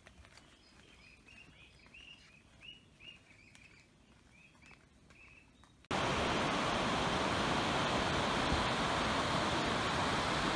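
Faint small-bird chirps, short and repeating about twice a second, for the first six seconds. Then an abrupt cut to the loud, steady rush of ocean surf breaking on a sand beach.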